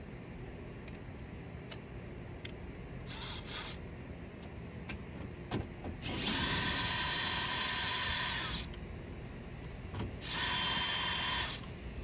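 Cordless drill/driver spinning fasteners at the top of an SUV's grille, running in three bursts of steady whine: a short one about three seconds in, a longer one of about two and a half seconds midway, and one of just over a second near the end. A few light clicks in between.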